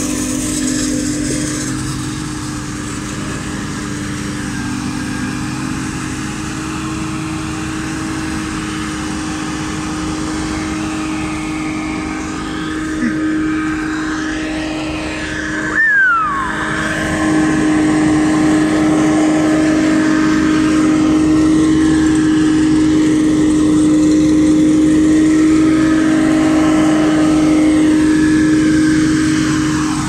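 Forage harvester chopping maize with a tractor and trailer running alongside: a loud, steady engine drone with a constant hum. Near the middle there is a short break and a brief falling whine.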